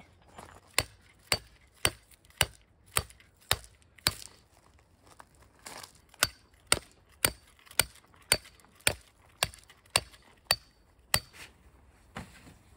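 A run of sharp, hard knocks, about two a second, that stops for about two seconds midway and then carries on.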